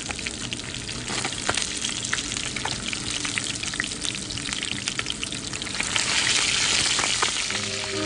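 Fish fillets shallow-frying in hot oil in a pan: a steady sizzle with many small crackles and pops, growing louder about six seconds in. Music comes in near the end.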